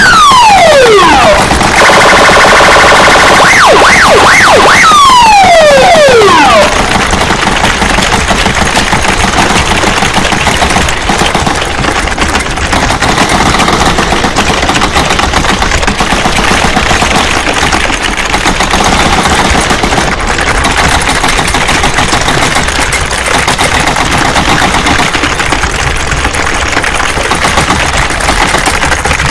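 Loud collage of distracting street noise. Sirens wail in rising and falling sweeps, with a blaring alarm-like horn about two to four seconds in. From about seven seconds on comes a dense, steady din with a rapid rattling texture.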